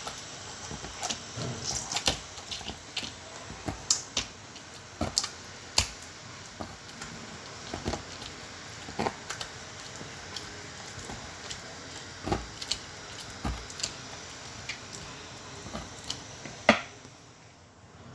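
Pork skin being pricked over and over with a sharp tool, giving irregular light taps and clicks at an uneven pace, the sharpest near the end.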